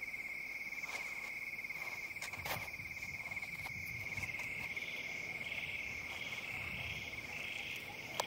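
Crickets trilling at night: one steady high trill throughout, joined about halfway through by a second, higher chirp that pulses about twice a second. A few faint ticks sound over the trill.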